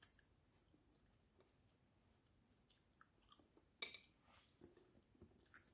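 Faint chewing and soft mouth clicks of someone eating soft sugar-apple flesh, with a sharper click about four seconds in.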